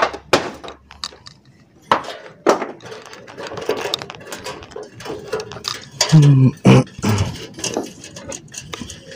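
Irregular clicks, knocks and light clinks of small hard items being handled, with a short loud vocal sound about six seconds in.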